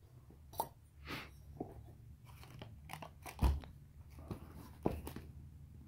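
Handling noise from a small scooter wheel with a rubber tyre: scattered clicks and crunching rubs, with a dull thump about three and a half seconds in as the wheel is set down on the carpet.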